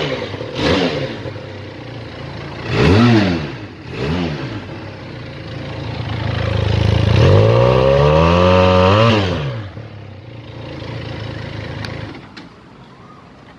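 Benelli motorcycle engine revved from idle: three quick throttle blips, then a longer rev held for a couple of seconds before falling back to idle. The engine stops near the end.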